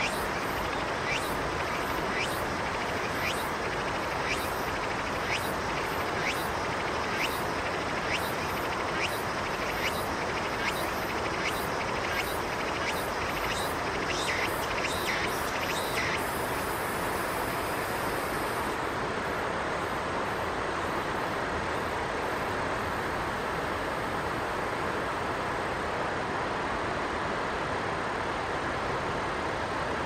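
Steady rushing of a river. Over it, a run of short, high, rising chirps comes about every second and stops about halfway through.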